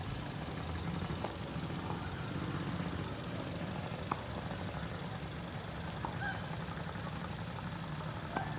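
Ford Fiesta car engine idling steadily, with a couple of faint clicks.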